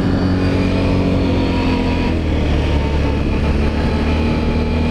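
Can-Am Renegade 1000 ATV's V-twin engine running while riding at a steady pace; its pitch dips slightly over the first couple of seconds, then holds steady.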